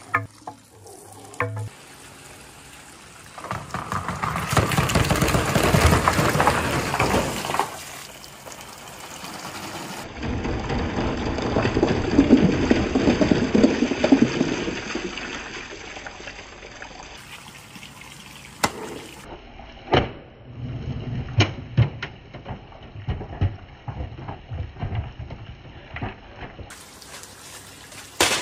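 A mass of marbles rolling and rattling down a marble run in a dense rushing stream, swelling twice, then thinning to scattered single clicks as the last marbles roll through.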